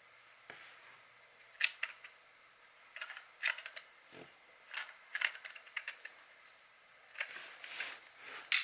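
Scattered sharp metallic clicks and clacks of a .25 Hatsan Sortie air rifle's bolt and hammer being worked by hand. The hammer only catches when the bolt is cocked all the way back, which the owner suspects comes from a damaged hammer spring.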